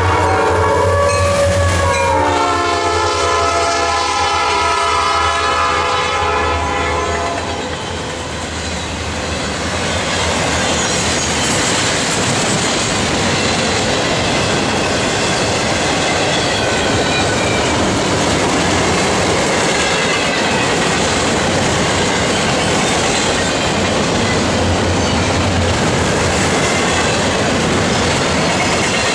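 Norfolk Southern diesel locomotive's air horn sounding a long chord as the lead units pass, its pitch dropping about two seconds in and the horn stopping about seven seconds in. After that comes the steady rumble and clickety-clack of the double-stack intermodal cars rolling by at speed.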